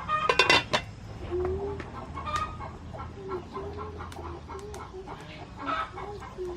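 Chickens clucking in short repeated notes, with a louder squawking call about half a second in, over a steady low hum.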